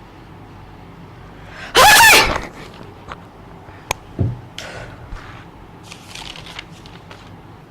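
A woman sneezing once, loudly, about two seconds in: a short pitched "achoo" that falls in pitch. A sharp click and a low thump follow a couple of seconds later.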